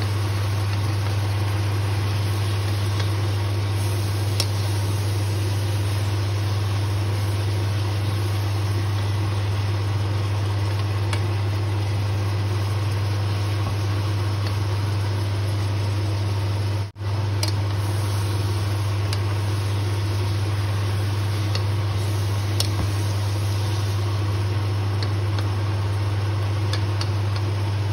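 A steady low hum with an even hiss over it, as pork belly and onions fry in a pot, and a few faint clicks of a wooden spatula against the pan. The sound cuts out for an instant about two-thirds of the way through.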